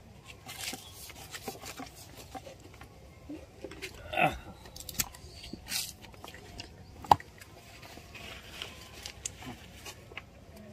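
Watercolour painting materials being handled: soft rubbing and scattered light clicks, with a short falling sound about four seconds in and a sharp click about seven seconds in.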